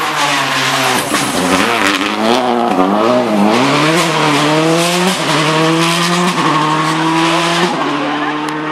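Subaru Impreza rally car's turbocharged flat-four engine, its revs rising and falling through a corner, then accelerating hard away with three quick upshifts, each a sudden drop in pitch, before fading into the distance.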